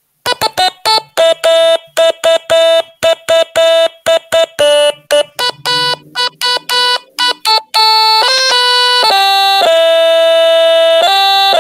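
A stylophone played with its stylus, picking out the melody of a well-known 1980s song. It starts as a quick run of short, separate notes, many on one repeated pitch, then about eight seconds in it changes to held notes running smoothly one into the next.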